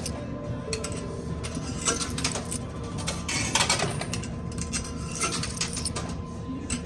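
Quarters dropping and clinking inside a coin pusher machine, with scattered metallic clinks over the machine's steady hum; the densest run of clinks comes about halfway through.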